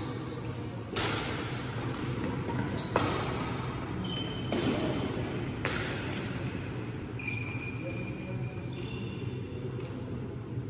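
Badminton rackets striking the shuttlecock in a doubles rally: a run of sharp smacks a second or two apart, mostly in the first six seconds, with high squeaks from shoes on the court floor in between.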